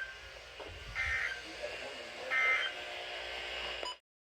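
NOAA Weather Radio end-of-message data bursts: short, shrill two-tone digital screeches, the tail of one and then two more about 1.4 s apart, signalling the close of the weekly test alert. Steady radio hiss runs underneath, and the audio cuts off abruptly near the end.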